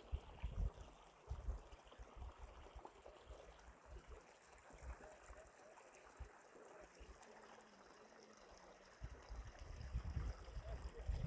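A stream running and trickling as a steady hiss, with low rumbles about half a second in and again in the last two seconds.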